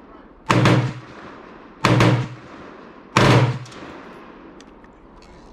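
Three gunshots from a firearm, fired at a steady pace about a second and a half apart, each with a short ringing tail.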